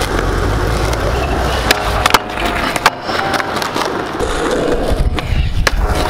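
Skateboard wheels rolling with a steady rumble, broken by several sharp clacks of the board against the ground, the loudest about two seconds in.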